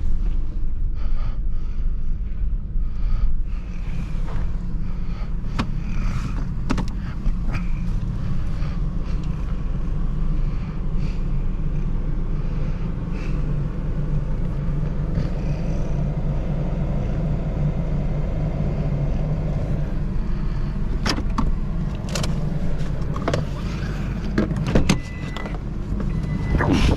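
Pickup truck driving, with a steady low engine and road rumble. Scattered sharp knocks and rattles come in, bunching up near the end.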